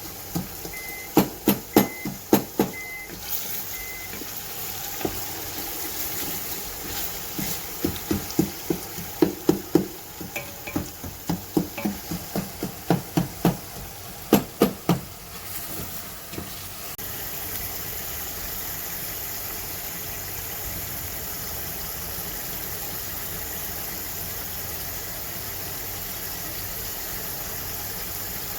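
Cooking in a pot: a run of sharp knocks and clatter, like a utensil striking the pot while stirring, then a steady frying sizzle from a bit past halfway.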